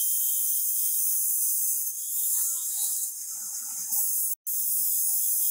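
Hand file scraping across a forged steel axe head: a steady high rasping hiss that drops out for an instant about four seconds in.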